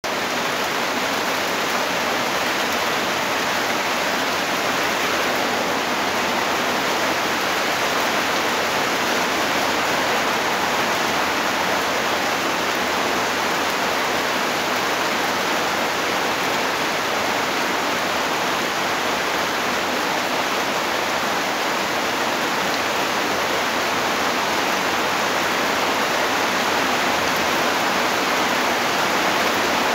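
Steady rain falling, a dense even hiss with no break.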